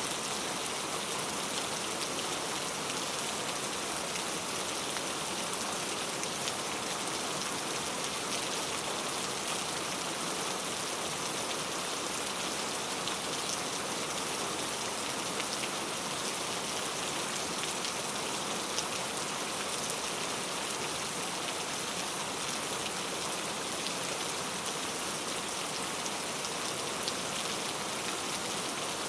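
Steady heavy rain: a dense, even hiss of falling water speckled with many small individual drop ticks.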